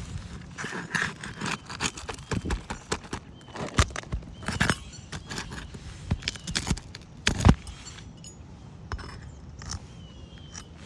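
A metal roofing tool scraping and knocking under asphalt 3-tab shingles, prying at the roofing nails: a string of sharp clacks and scrapes, the loudest about seven and a half seconds in, then quieter.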